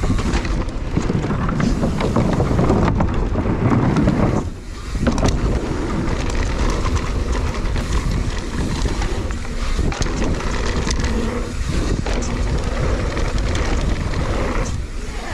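Mountain bike descending a dirt jump trail: wind rushing over the microphone, with tyres rolling on dirt and the bike rattling. The noise drops briefly about four and a half seconds in.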